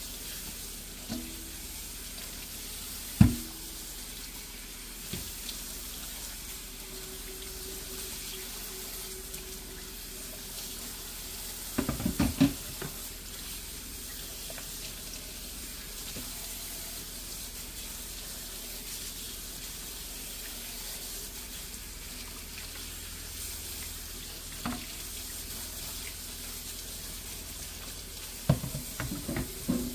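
Tap water running into a stainless steel sink while a dark baking pan with round cups is scrubbed with a sponge. The pan knocks against the sink now and then: one sharp knock about three seconds in, a quick clatter around twelve seconds, and more clatter near the end.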